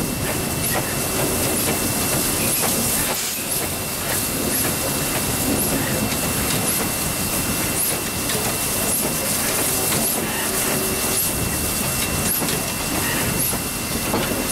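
Victorian Railways K-class 2-8-0 steam locomotive K160 running along the line, heard from its footplate: a steady rush of steam hiss and rolling wheel-on-rail noise, with a thin high tone held steady above it.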